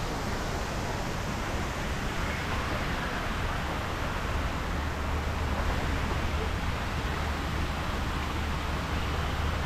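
Steady outdoor background noise, an even hiss with a low rumble that grows stronger about halfway through.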